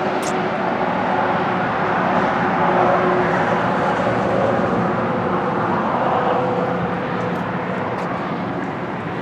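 A machine running steadily: a loud, even rush with a faint steady hum under it.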